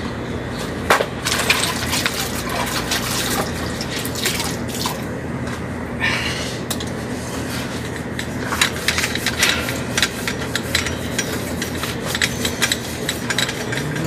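A cloth rubbing and wiping over a bicycle's frame and handlebars, in many short scratchy strokes with scattered light clicks and knocks.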